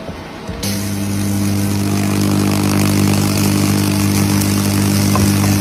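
A power tool's motor running at a steady speed, a constant hum that comes in about half a second in.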